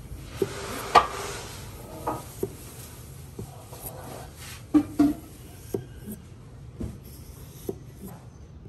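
A kitchen knife slicing thin rounds off a cucumber on a cutting board: about a dozen irregular crisp cuts and taps of the blade on the board, the loudest about a second in and around the middle.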